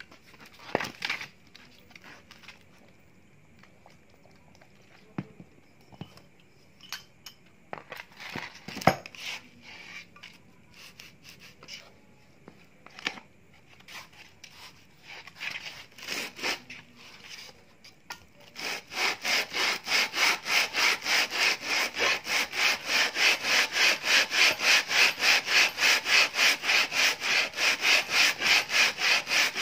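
Scattered knocks and clatter of handling parts, then, a little under 19 s in, a diesel cylinder head rubbed back and forth on wet fine-grit sandpaper over a glass sheet in steady, even strokes, about two to three a second. It is hand-lapping to flatten the warped head face.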